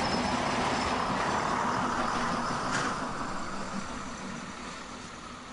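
DB class 772 diesel railbus running past on the track: engine drone and wheel-on-rail noise that fade away over the second half as it moves off. There is one sharp click about three seconds in.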